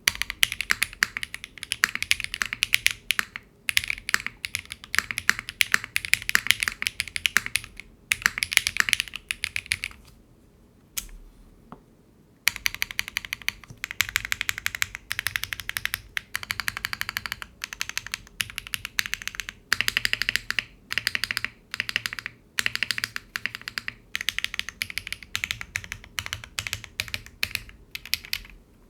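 Typing on a custom mechanical keyboard with HMX Yogurts long-pole linear switches, an aluminium plate, no foam and GMK doubleshot ABS keycaps: a quick run of clacky keystrokes, a pause of about two seconds with a single click near the middle, then typing in short bursts.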